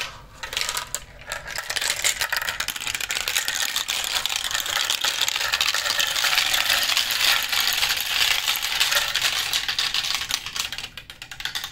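Many glass marbles clattering and clicking as they roll and tumble through a translucent plastic marble run. The clatter starts sparse, grows into a dense rattle about two seconds in, and thins out near the end.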